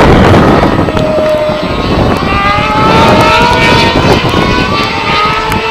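Superbike motorcycle engines at high revs, several engine notes overlapping, each climbing steadily in pitch as the bikes accelerate.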